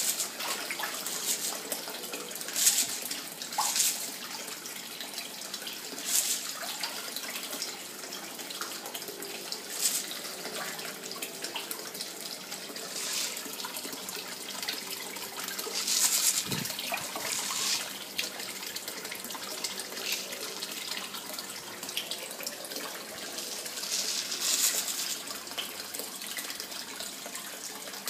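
Water running steadily into a fish tank, broken every few seconds by short splashes at the surface as largemouth bass strike floating pellet feed.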